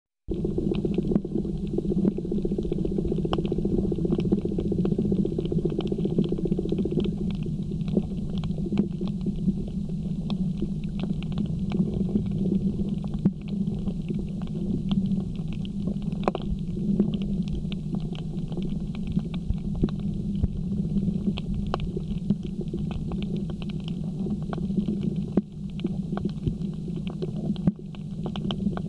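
Underwater sound on a coral reef, heard through a camera's waterproof housing: a steady, muffled low rumble with a constant scatter of faint crackling clicks.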